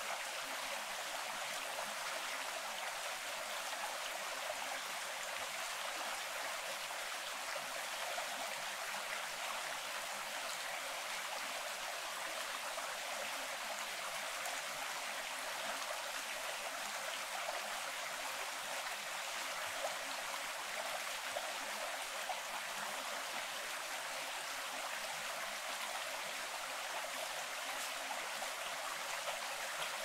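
Forest stream running steadily over rocks, an even, unbroken rush of water with no low rumble.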